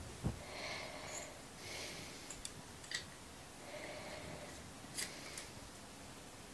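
A man breathing audibly in slow breaths while he handles a plastic bottle and a glass on a table, with a few light clicks and taps and one soft thump near the start.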